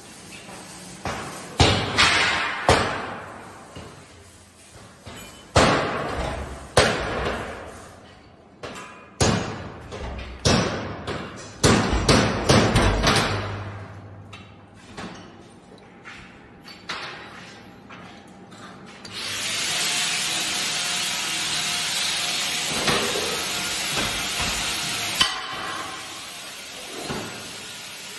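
Irregular hammer blows on steel, about a dozen sharp clanging strikes each ringing out, during assembly of an egg tray dryer line's chain drive. About 19 s in, a steady hiss starts and runs for about six seconds, ending with a knock.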